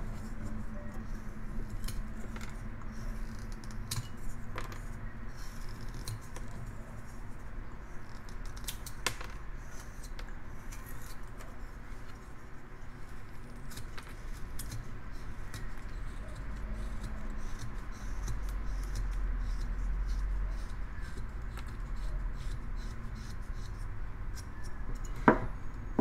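Carving knife paring shavings off a basswood block: a continuous scraping of the blade through the wood, with scattered small clicks and one sharp knock near the end.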